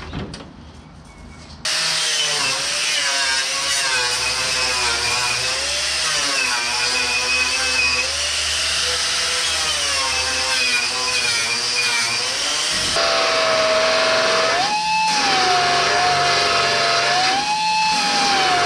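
A handheld electric power tool starts suddenly about two seconds in and runs on, its whine wavering up and down as the load changes. Past the middle it jumps to a higher steady pitch, with two brief rises near the end.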